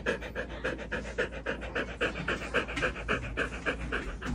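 A dog panting rapidly and evenly, about five breaths a second.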